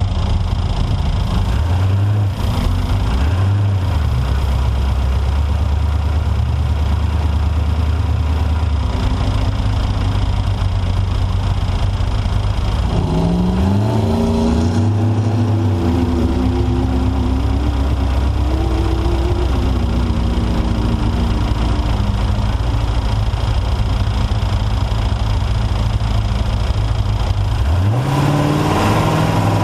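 Off-road race truck engine, loud and close. It blips its revs twice early on and runs steadily, then accelerates hard about halfway through with the pitch climbing and stepping through gear changes. It eases off, then climbs again near the end.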